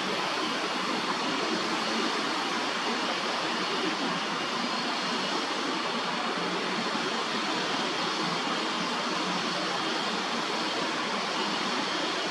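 Steady, even ambient outdoor noise with no distinct events, a continuous hiss and hum like distant city traffic.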